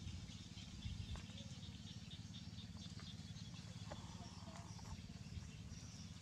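Faint outdoor ambience: a low steady hum with small birds chirping faintly now and then.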